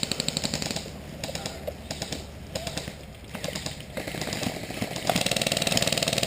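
Airsoft electric gun firing on full auto: a rapid rattle of shots in bursts, one at the start, a short one about two and a half seconds in, and a longer one from about five seconds in.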